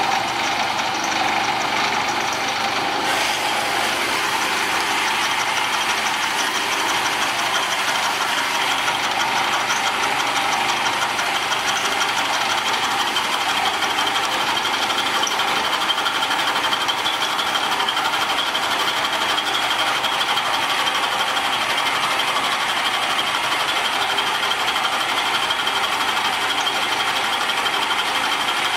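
Milling machine running with its cutter climb milling a metal part: a steady machining noise, with a brighter hiss coming in about three seconds in and a thin high whine through the later part.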